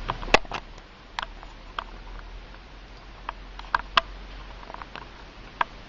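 Guinea pigs eating vegetables from a metal bowl: irregular crisp crunching clicks, a few sharper and louder than the rest, over a faint steady hiss.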